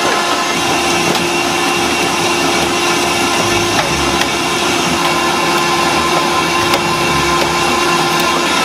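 Hydraulic scrap-car press running under load as it squeezes a car body flat, its pump and motor giving a steady whine at a constant pitch over a dense mechanical noise.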